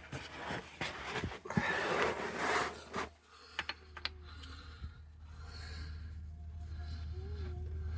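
Clicks, taps and rustling of hand tools and small axle parts being handled, busiest in the first three seconds, then quieter with a low steady hum and a faint wavering tone.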